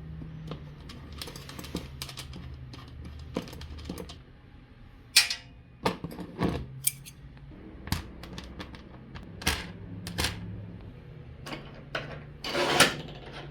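Irregular sharp clicks and knocks of hand tools and parts being handled, over a steady low hum.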